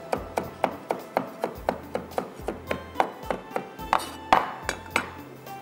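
Kitchen knife chopping fresh ginger on a cutting board in quick, even strokes, about four or five a second, stopping about five seconds in, over background music.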